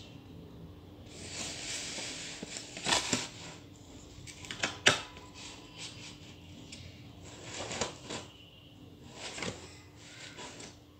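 A sheet of paper being handled and shifted against a ruler: rustling in several stretches, with two sharp taps about three and five seconds in.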